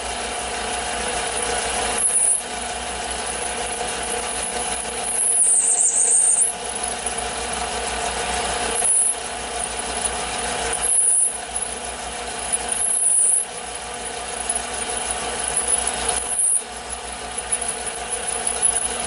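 Taig lathe running with a drill bit in the tailstock chuck cutting into a spinning cast iron workpiece. A steady motor hum sits under a dry rasping cut, and every few seconds there is a louder scrape and a short dip.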